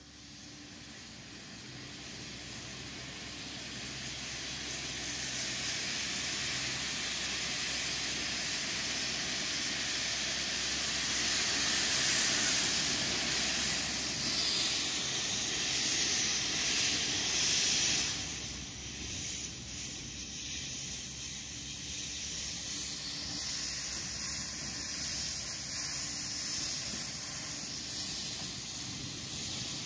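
Narrow-gauge steam locomotive Urskog venting steam with a loud, steady hiss. The hiss builds over the first dozen seconds, is loudest for a few seconds, then drops back somewhat about eighteen seconds in and carries on.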